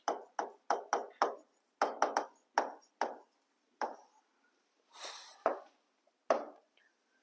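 A pen tapping and clicking on the glass of a touchscreen board while letters are written: about a dozen short sharp taps at an uneven pace, with a brief scratchy stroke of an underline about five seconds in.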